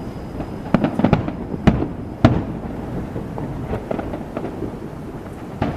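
Aerial fireworks going off: a continuous rumble of distant bursts with several sharp, loud bangs, the loudest a little after one and a half and two seconds in, and another just before the end.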